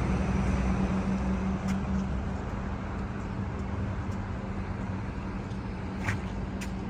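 Street traffic: a steady rumble of vehicles with a constant low hum, and two short clicks near the end.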